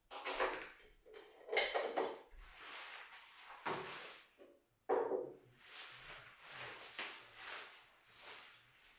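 A black film changing bag being handled on a wooden table: fabric rustling and swishing in repeated strokes, with a few sharp knocks as objects are set on the tabletop.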